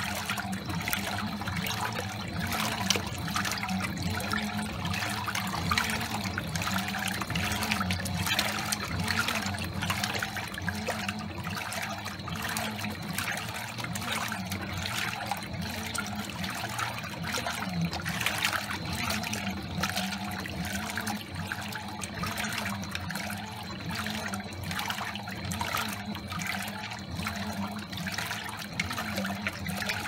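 Fisher & Paykel Pride top-loading washing machine in its wash cycle: water sloshing steadily around the clothes in the tub. Under it runs a machine hum whose pitch wavers back and forth.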